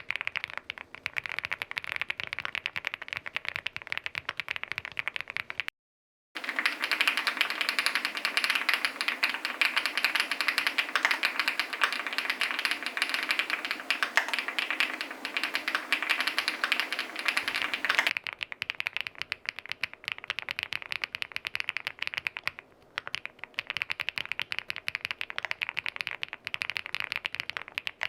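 Fast typing on the SPM Joyakdol75 aluminium custom mechanical keyboard: a dense, continuous clatter of keystrokes. It cuts out briefly about six seconds in, comes back louder and brighter, and turns softer again about eighteen seconds in, as the switch sound tests change.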